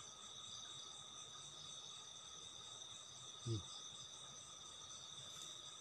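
Night insect chorus, crickets trilling steadily in several high pitches. A brief low voice sound cuts in once, about three and a half seconds in.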